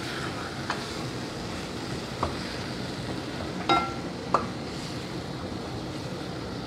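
Minced meat sizzling in a metal pot over a gas flame while a wooden spoon stirs it, a steady hiss. The spoon knocks against the pot four times, the last two, about halfway through, ringing briefly.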